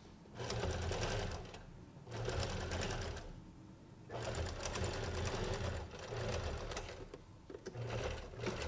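Domestic sewing machine stitching through a fabric pot holder in about four short runs, starting and stopping between them as the fabric is guided along.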